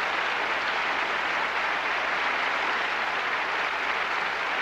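Audience applauding at a steady level.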